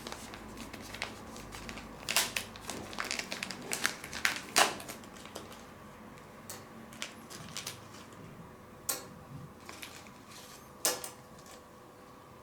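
Hands unpacking a small electronics box: plastic packaging and parts clicking and crinkling, busy for the first few seconds, then a few scattered clicks, with two sharp snaps near the middle and towards the end.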